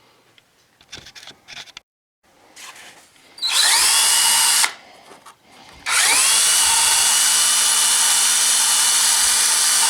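Power tool driving a wire wheel, run twice: a short burst of about a second, then a longer run of about four seconds, each spinning up quickly to a steady high whine before cutting off. It is brushing old gasket residue off the engine's carburetor mounting flange.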